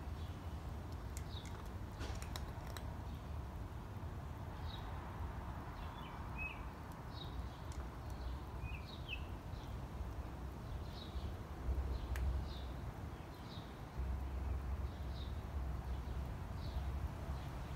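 A small bird repeating short, high chirps that slide down in pitch, about one a second, over a steady low rumble. A few faint clicks come near the start and once in the middle.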